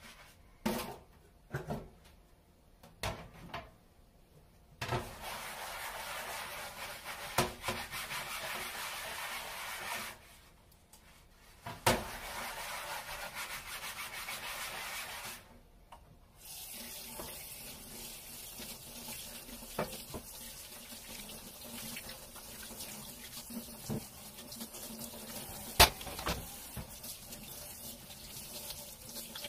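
Dishes being washed under a running tap at a stainless steel kitchen sink. A few knocks of crockery come first, then the water runs in spells, breaking off twice, with dishes clinking under it and one sharp clack near the end.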